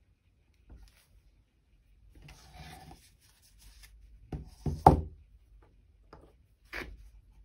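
A canvas board being handled on a cutting mat: a scraping rustle, then three knocks as the board is set back down, the last and loudest about five seconds in. Two small clicks follow near the end, as a paint bottle is handled.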